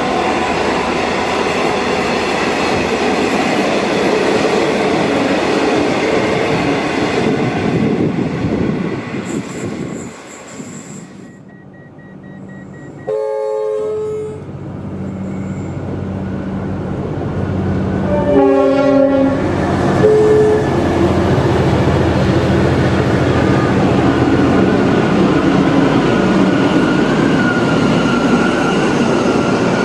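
V/Line N class diesel locomotive running past with engine and wheel noise. After a break, an XPT diesel passenger train approaches and gives two horn blasts about five seconds apart, then runs past with a steady low engine hum and rail noise.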